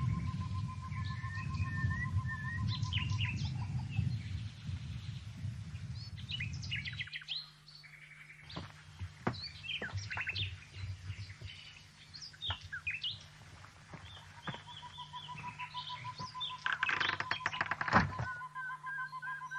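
Birds chirping and singing, with a steady high trill running underneath for long stretches. A low rumble in the first seven seconds gives way to a low hum, and a brief clattering rattle comes near the end.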